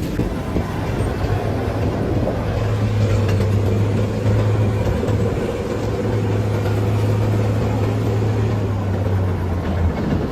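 A steady low engine hum over rumbling noise, starting about a second in and cutting off shortly before the end.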